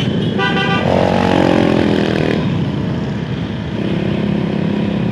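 Motorcycles riding in a group at night: steady engine noise and wind rush on a moving rider's microphone. About half a second in comes a brief high beep, and then a nearby engine's tone rises and falls for a second or two.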